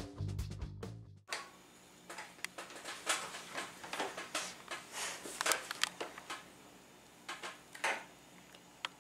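Guitar background music that cuts off about a second in. It is followed by a pencil scratching on notebook paper in short, irregular strokes as shapes are drawn.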